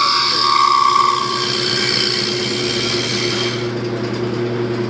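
Wood lathe motor running steadily while a carbide-tipped turning tool cuts into the spinning wooden bowl, a scraping hiss over the hum that eases off about three and a half seconds in.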